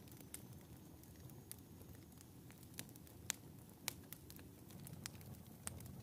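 Wood fire crackling in a wood-burning stove: a faint low rumble of burning logs with irregular sharp pops and snaps, the loudest just past the middle.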